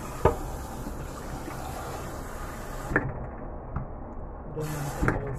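Kitchen tap running into the sink, with a few knocks of a pot against the sink.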